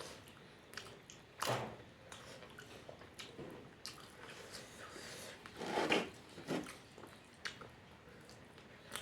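Close-up eating sounds from a mouthful of fish curry: wet chewing and small lip smacks. Louder mouth noises come about one and a half seconds in and again around six seconds.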